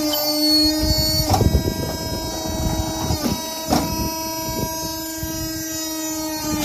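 Comafer Dynamic 110S wood briquetting press at work: its 7.5 kW main motor hums steadily while the press cycles, with about four heavy clunks as the wood waste is compacted into round briquettes.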